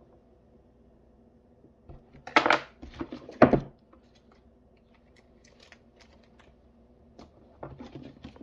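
Paper and sticker handling: a price sticker peeled off a paperback and a printed label pulled from a label printer, with two short, sharp ripping sounds a couple of seconds in, then lighter rustling and handling of the book. A faint steady hum sits underneath.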